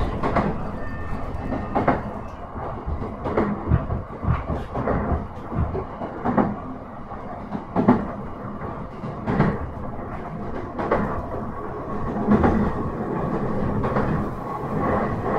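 Running sound from inside a JR East E131 series 1000 electric commuter train on the move: a steady rumble with the wheels clicking over rail joints about every second and a half.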